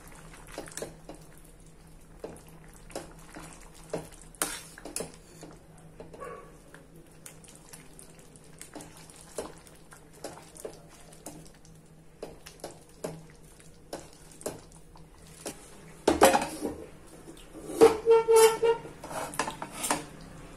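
A steel spoon scraping and tapping against a steel kadai as thick pav bhaji is stirred, scattered light clinks over a faint steady hum. Near the end come louder clattering and a brief ringing metal clang as the cookware on the burner is shifted.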